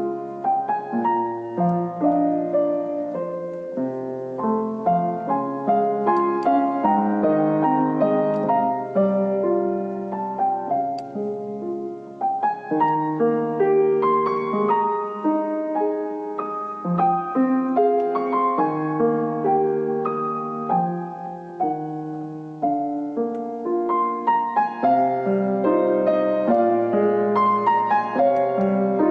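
Piano playing an instrumental piece: a melody over held chords, notes changing every half second or so.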